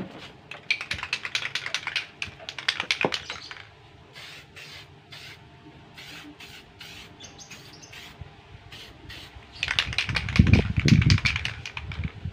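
Aerosol spray-paint can spraying in short hissing bursts with rapid clicking, and a louder burst with a low rumble about ten seconds in.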